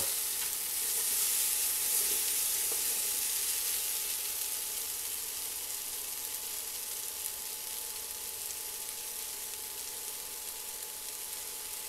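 Potatoes, onion and poblano chile strips sizzling in oil in a frying pan over high heat: a steady frying hiss that slowly grows fainter.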